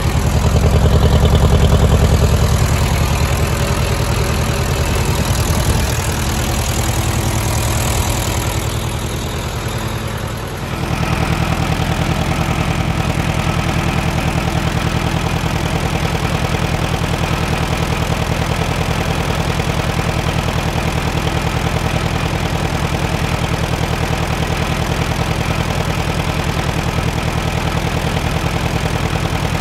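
Case VAC tractor's four-cylinder engine idling. It is louder and rougher for the first ten seconds or so, then settles into a steady, even run.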